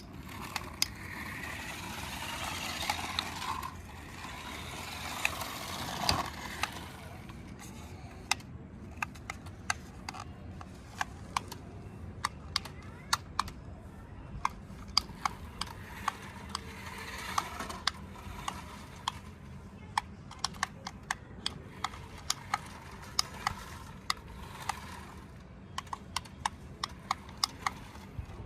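Toy RC monster bus running: a small electric motor and plastic gearbox whirring in spurts, with many sharp, irregular plastic clicks and clatters throughout.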